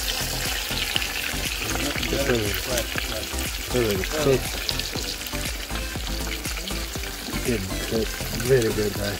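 Salmon pieces frying in coconut oil in a small metal camp pan, a steady sizzle, with a metal spoon moving and scraping the fish in the pan.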